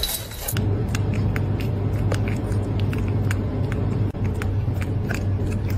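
Steady low road rumble inside a moving car, with faint scattered clicks over it.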